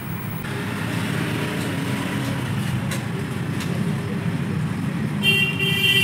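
Steady road-traffic noise with a vehicle horn tooting briefly near the end.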